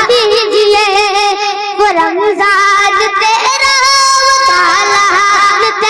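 A child singing a naat in a high voice, with wavering, ornamented turns and a long held note in the middle.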